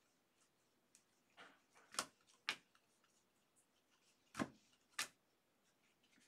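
Four sharp clicks in two pairs, each pair about half a second apart and the pairs about two seconds apart, against near silence with a faint rustle before the first pair.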